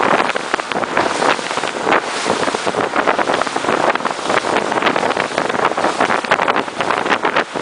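Wind buffeting the microphone over rushing, splashing water aboard a moving boat, loud and gusty throughout.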